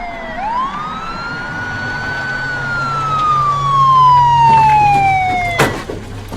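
Police car siren wailing: the tone sweeps up quickly about half a second in, then slowly falls over several seconds. A single sharp bang cuts it off near the end.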